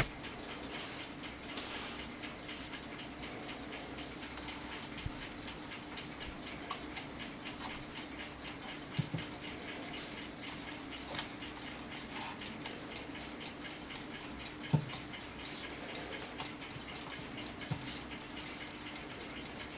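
Kaiser Triangle mechanical alarm clock, a 1970s West German wind-up movement freshly serviced, ticking steadily over a faint hum. A few louder knocks break in, the loudest about fifteen seconds in.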